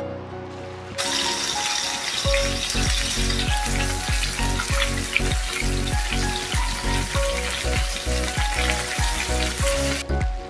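Starch-coated beef slices sizzling as they fry in hot oil in a pan. The sizzle starts about a second in and cuts off suddenly near the end, over background music with a steady beat.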